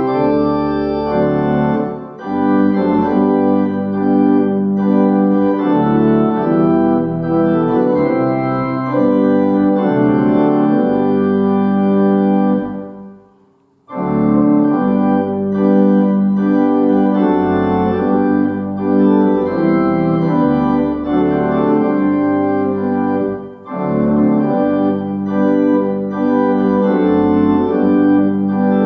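Organ playing a hymn tune in full sustained chords. The verse ends and the sound dies away a little before halfway, and the next verse begins about a second later.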